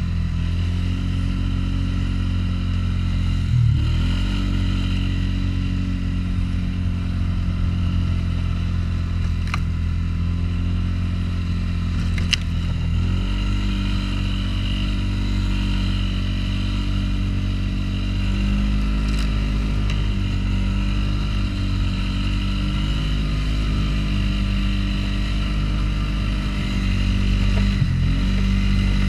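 Engine of a 500 cc ATV running steadily under the load of pushing snow. The engine note dips briefly and recovers a few seconds in, again near the middle and near the end, with a couple of faint sharp clicks along the way.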